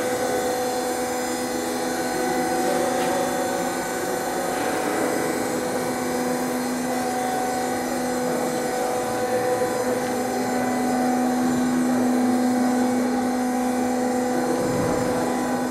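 SUMAB concrete block machine (vibropress) plant running: a steady mechanical hum and whine over machine noise. The lowest held tone drops away for several seconds in the middle and then returns.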